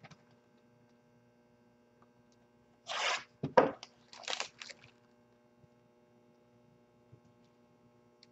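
Packaging of a trading-card box being torn open: one rip about three seconds in, a sharp knock, then a few shorter rips, over a steady low mains hum.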